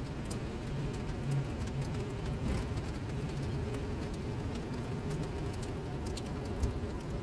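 Rain falling onto a puddled paved surface: a steady wash with scattered small drip clicks over a low steady rumble.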